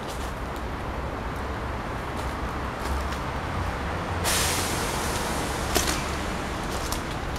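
Steady low rumble of city traffic. About four seconds in, a loud hiss lasting about a second and a half cuts in and ends with a sharp click.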